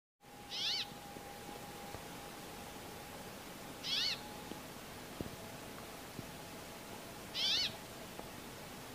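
Brambling calling: three short calls about three and a half seconds apart, each rising then falling in pitch.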